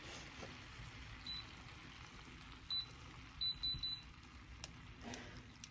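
Faint, quiet sizzle of halved quinces caramelizing in a frying pan. A few very short high beeps come about halfway through, and two light clicks near the end.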